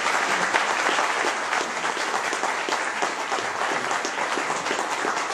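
Audience applauding: many hands clapping steadily at a loud level, in a sustained round of applause.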